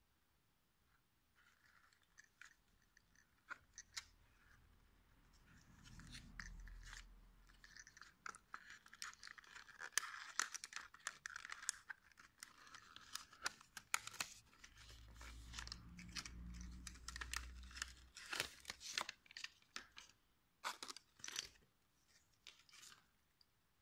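Small cardboard box being handled and opened: fingers scrape and rub the card and pry at the end flap, with many small clicks and scuffs. Dull low rubbing sounds come twice along the way.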